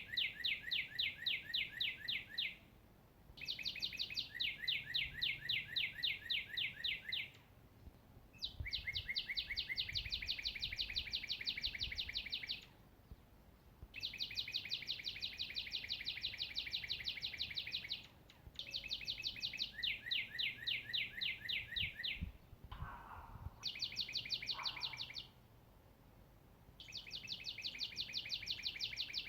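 A songbird singing long, even trills of rapid repeated notes, each trill lasting three to four seconds with short pauses between, seven in all. A fainter, lower call sounds twice near the end.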